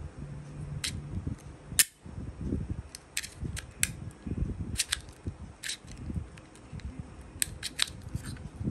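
Plastic tripod phone clamp being handled and worked, giving about a dozen sharp, irregular clicks, the loudest about two seconds in, over low rubbing and handling noise.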